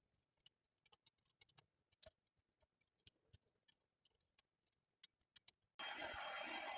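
Near silence with faint scattered ticks, then about six seconds in a steady mechanical noise with a thin whine cuts in abruptly: a small power tool, a hedge trimmer or mini chainsaw, running.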